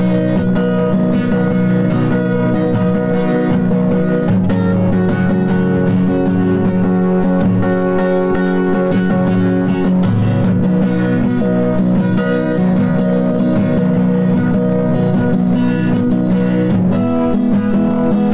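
Background music: a guitar-led instrumental rock passage with a steady beat and no singing.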